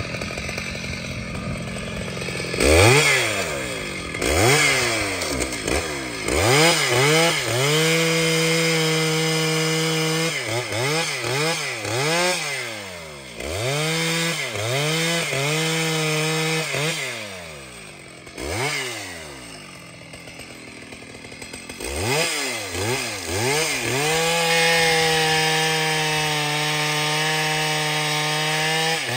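A large professional two-stroke chainsaw cutting dense trembesi hardwood. It revs up and down in short blips and holds full throttle for stretches of a few seconds, then drops back briefly about two-thirds of the way through.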